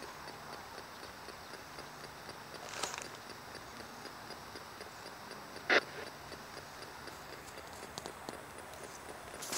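P-SB7 spirit box sweeping through radio stations, played through a portable speaker: a steady static hiss with a rapid, regular ticking from the sweep. A short burst of sound from a station caught in the sweep comes just before halfway, and a louder, very brief one comes a little past halfway.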